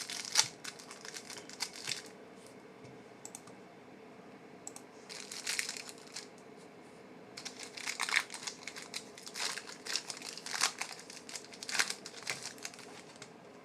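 Crinkling of trading-card pack wrappers and cards being handled, in several short bouts of rustling with quieter gaps between.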